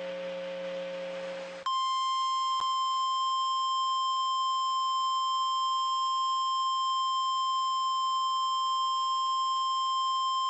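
Emergency alert tone: after about a second and a half of low buzzing hum and hiss, a single steady high-pitched tone starts abruptly and holds, the NOAA Weather Radio 1050 Hz warning alarm tone that comes before a National Weather Service alert message.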